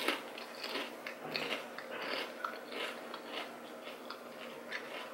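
A person chewing a chip topped with pickled sausage, close-up crisp crunches about twice a second.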